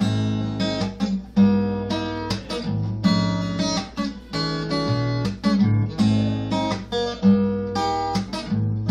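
Acoustic guitar strumming chords, with a fresh strum roughly every half second to second as the song's introduction is played.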